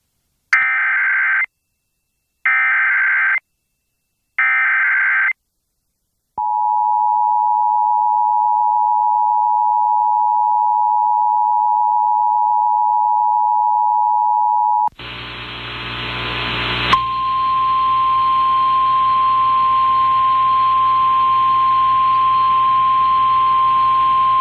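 Emergency Alert System tornado-warning activation. Three short screechy bursts of SAME header data open it, followed about six seconds in by the two-tone EAS attention signal, held for roughly eight seconds. At about fifteen seconds it switches to a hissy, narrow-sounding relay of NOAA Weather Radio, and about two seconds later the steady single-pitch weather radio warning alert tone starts.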